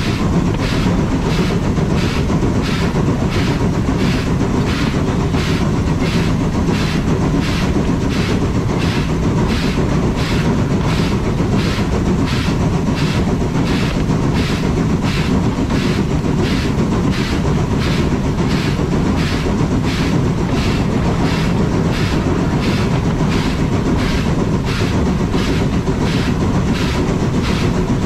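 Steam train running on a rack railway, a constant rumble with an even, steady beat about twice a second.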